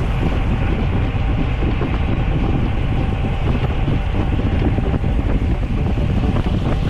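Steady wind rumble on the microphone of a moving bicycle, with road and tyre noise underneath.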